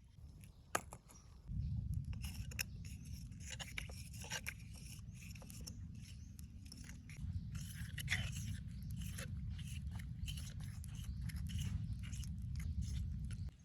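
Hand work with a tool or material: a run of short, crisp scraping and snipping sounds over a steady low rumble.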